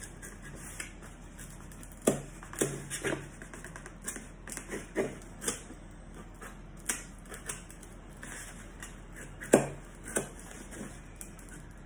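Kitchen knife stabbing and sawing through a white foam container to cut round holes: a run of irregular short strokes, the loudest about two seconds in and again near the end.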